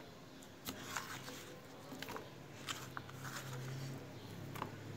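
Faint, scattered soft taps and light rustling of raw potato sticks being moved around by hand on an oiled baking tray, about half a dozen small clicks.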